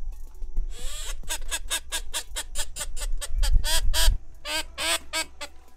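Duck calls: quick runs of short, evenly spaced quacking notes, several a second, with a low rumble of wind on the microphone under them.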